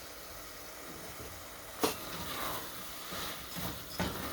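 Food frying in a pan on the stove, a soft steady sizzle, with two sharp knocks of a utensil on the pan, about two seconds in and near the end.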